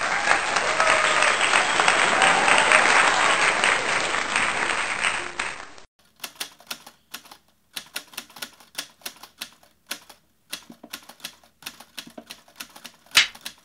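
Crowd applause, dense and loud, cutting off abruptly about six seconds in. Sparse, irregular typewriter key clicks follow, as of text being typed out, then a brief whoosh near the end.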